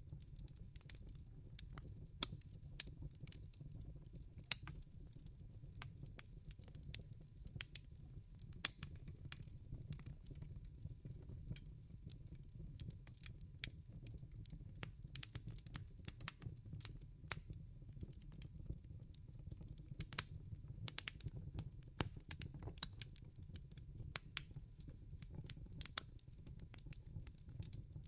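Wood fire crackling in a fireplace: irregular sharp pops and snaps, several a second and none in a steady rhythm, over a steady low rumble of the burning fire.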